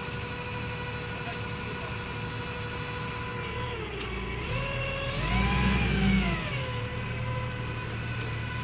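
Hyundai forklift engine running steadily. About five seconds in it revs up and settles back down, with a smaller rev near the end.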